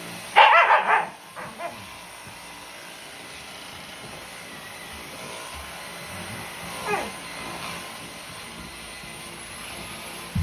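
Shiba–Siberian husky mix barking at a running Dyson vacuum cleaner: a burst of about four loud barks in the first second, two softer ones just after, and a single falling whine-like yelp about seven seconds in. The vacuum's steady running and high motor whine lie underneath throughout.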